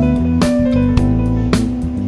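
Background music led by guitar, with a held note under it and drum hits about a second apart.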